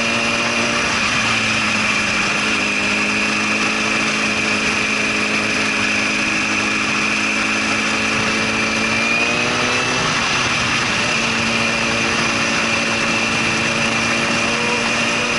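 2005 Honda CBR1000RR Fireblade's inline-four engine running while the bike is ridden, with steady wind rush. The engine note climbs gradually for several seconds, then drops suddenly about ten seconds in.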